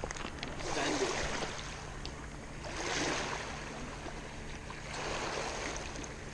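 Small waves lapping on a gravel lakeshore, washing in and out about every two seconds.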